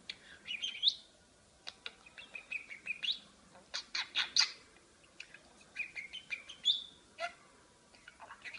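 Budgerigar chattering: quick chirps, clicks and short rising squeaks in several bursts, with brief pauses between them.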